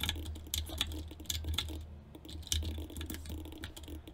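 Computer keyboard keys pressed in quick, irregular taps, several a second, over a steady low hum.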